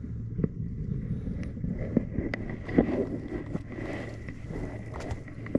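Wind rumbling on the microphone, with scattered knocks and scuffs from a person moving about on a sailboat's deck and bracing a hand on the cabin top. A faint steady high tone comes in about two seconds in.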